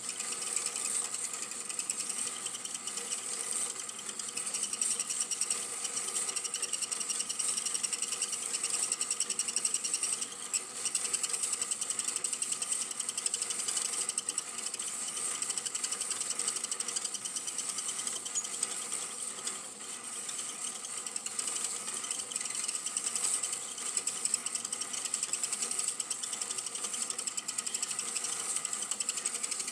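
Super 8 film projector running, its mechanism clattering steadily with a rapid, even ticking.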